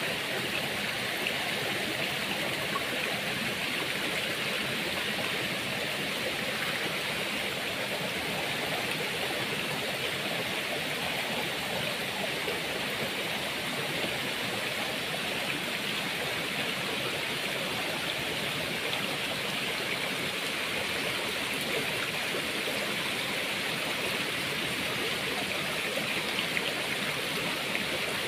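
Shallow stream rushing over rocks, a steady, even water noise.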